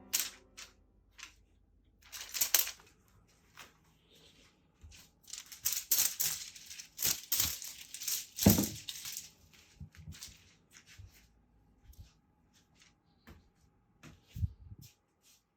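Crinkly cat teaser toy rustling and crackling in irregular bursts as it is handled or batted, with a louder run of crinkling in the middle.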